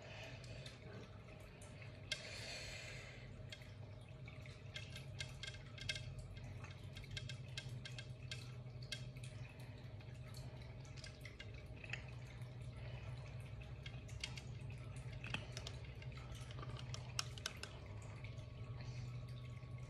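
Faint scattered clicks and small liquid drips as a wooden skewer stirs and taps in a glass of milky drink, over a steady low hum.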